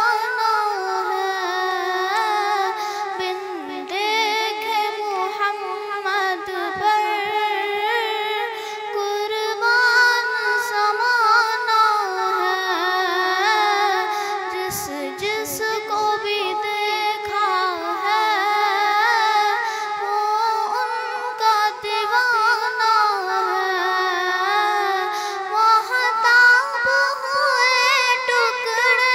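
A girl singing a naat, an Urdu devotional poem in praise of the Prophet, unaccompanied, in long held notes with wavering, ornamented pitch.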